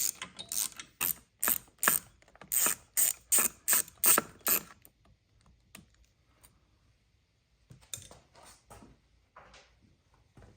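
A 1/4-inch drive ratchet with a T20 Torx bit clicks about three times a second as it backs out a screw holding the idle air control valve. After a pause, a few fainter clicks come near the end.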